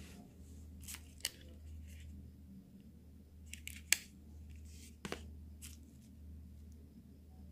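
Short crinkles and clicks of plastic-wrapped phone accessories, a bagged USB cable and earphones, being handled, the sharpest about four seconds in, over a steady low hum.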